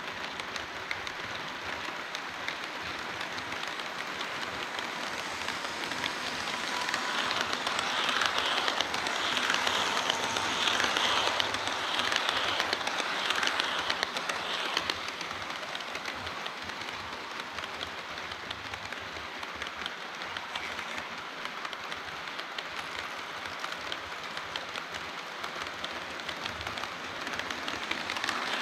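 HO-scale model train running on the layout track, its wheels rattling on the rails. It grows louder about seven seconds in as it passes close, then eases off after about fifteen seconds.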